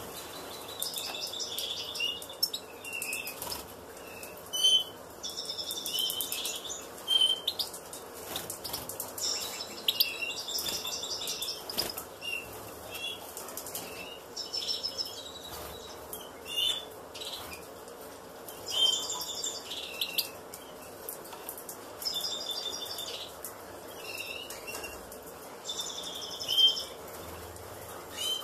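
European goldfinches at the nest: bursts of high, rapid twittering and short chirps, coming every few seconds, while an adult attends the nestlings.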